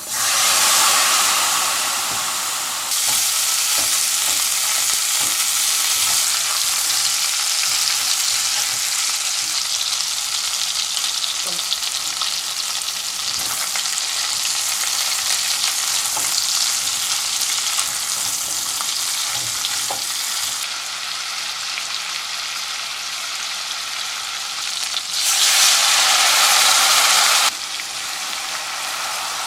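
A steady sizzling hiss like food frying, with a sudden step up in loudness about three seconds in and a louder stretch from about 25 to 27 seconds in.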